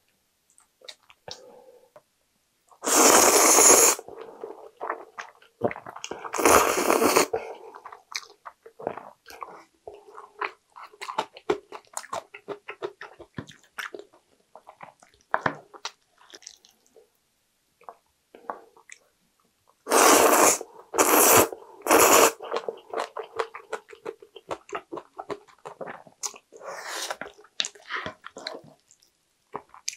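Jjajang ramen noodles being slurped and chewed. There are loud slurps about 3 and 6 seconds in, three in quick succession around 20 seconds in and another near 27 seconds, with soft chewing and small clicks between them.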